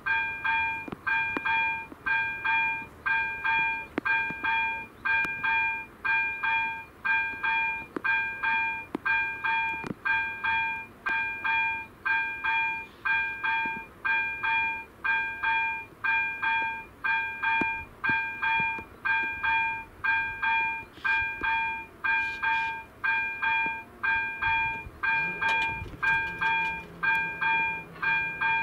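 Level-crossing warning bell of an AŽD 71 crossing ringing in a steady repeated ding, about two strokes a second, as the crossing signals an approaching train. Near the end a low steady hum joins as the barrier arms come down.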